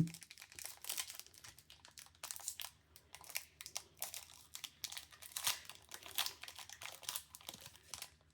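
Trading card pack wrapper being torn open and crinkled by hand, a run of irregular crackles and rustles.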